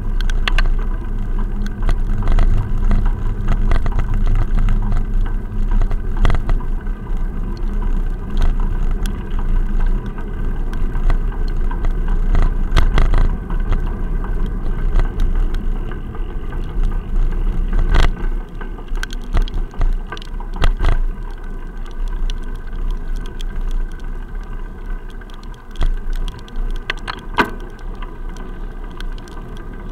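Muffled ride noise from a bicycle-mounted action camera sealed in its waterproof case: a low rumble from the wheels on wet tarmac, with frequent irregular sharp knocks as the mount jolts over bumps. It gets quieter from about halfway on.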